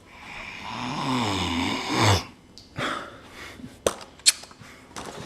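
A person's drawn-out, breathy, snore-like vocal noise lasting about two seconds, followed a couple of seconds later by two sharp clicks.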